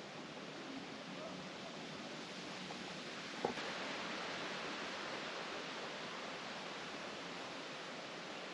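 Steady outdoor hiss, a little stronger after a single sharp click about three and a half seconds in.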